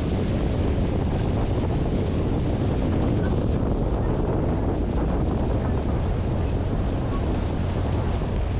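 Wind buffeting the microphone over the steady low rumble of a sightseeing boat under way on a lake. The noise is even throughout, with no single event standing out.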